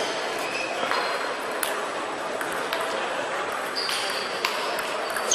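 Table tennis balls clicking off bats and tables, irregular sharp ticks from the near table and others in play, over the background noise of a busy sports hall. A short high squeak comes about four seconds in.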